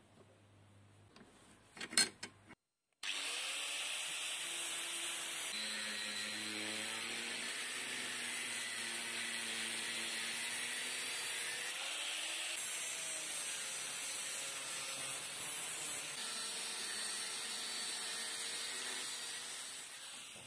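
A sharp knock about two seconds in, then an angle grinder cutting through steel reinforcement bar. The grinding starts suddenly about three seconds in, runs steadily and fades out near the end.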